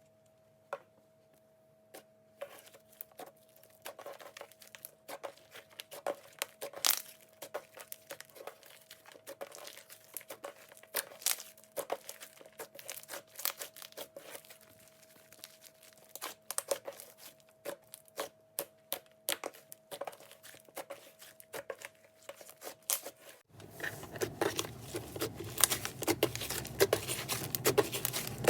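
Slime being kneaded and stretched by hand, giving irregular sticky clicks, pops and crackles. Near the end the sound changes to denser, louder crackling.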